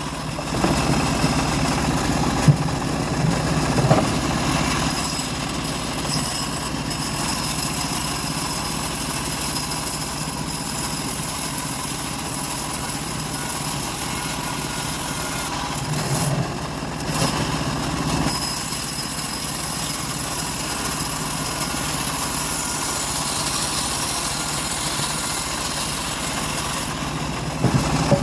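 Engine of a homemade log bandsaw running steadily, with a short dip in level about sixteen seconds in.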